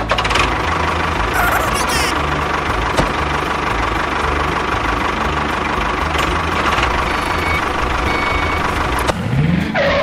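Tractor engine running steadily. It starts abruptly and cuts off about nine seconds in.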